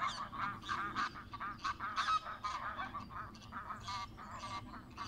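A flock of greylag geese honking, with many overlapping calls following one another several times a second.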